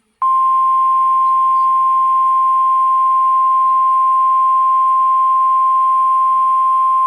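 NOAA Weather Radio warning alarm tone, a single steady 1050 Hz tone sent as part of the Required Weekly Test. It switches on a moment in and holds at a constant pitch and loudness throughout.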